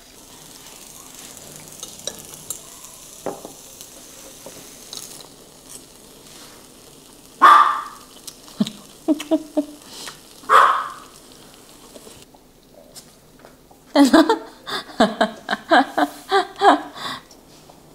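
Beef sizzling on a cast-iron grill pan, then a small dog barks twice, about seven and ten seconds in. Near the end comes a quick run of short, sharp sounds while the cooked beef is cut up with scissors.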